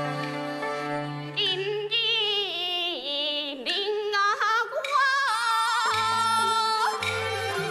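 A woman singing a gezaixi (Taiwanese opera) aria with a wide vibrato over traditional Chinese instrumental accompaniment. The instruments play alone for about the first second and a half before she comes in, and she holds long notes near the end.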